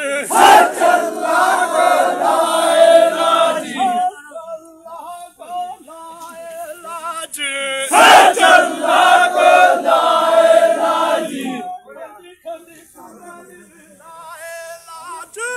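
Call-and-response work chant: a lone male voice sings a line and a large crowd of men answers with a loud shout in unison, twice over. The chant keeps a crowd together as it hauls a heavy wooden house beam by hand.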